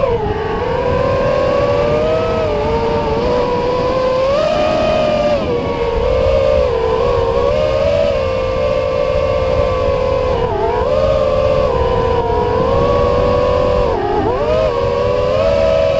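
FPV quadcopter's brushless motors and propellers whining, the pitch rising and falling with the throttle and dipping sharply a few times as the throttle is chopped, heard from the drone's own camera with wind rush on the microphone.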